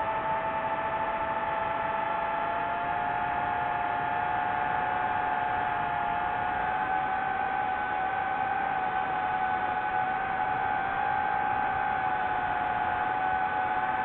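DJI FPV drone's motors spinning Gemfan Hurricane 5236 propellers: a steady multi-tone whine over a rushing hiss, its pitches drifting slowly up and down with the throttle.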